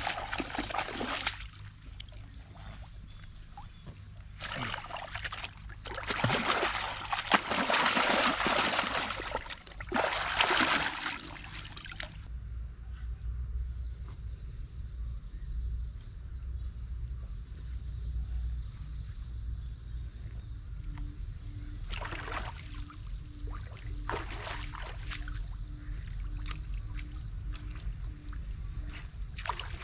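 Water splashing and sloshing in several loud bursts as a man kneeling in a shallow stream washes with his hands. After about twelve seconds it turns quieter, with a steady high tone, a pulsing low tone, and a few light splashes in the shallows.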